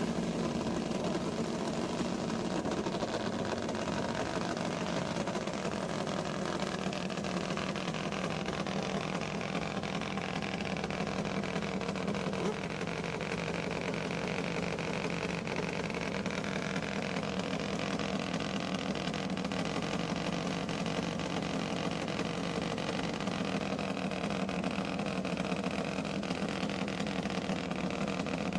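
Top fuel drag motorcycle engines idling steadily at the start line, a big V-twin among them, with no revving.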